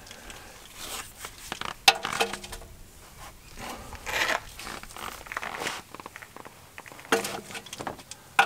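Scattered metal clinks and scrapes with glove and clothing rustle as a 14mm socket wrench is fitted to an engine sump plug and worked to crack it loose; about two seconds in and again near the end a clink rings briefly.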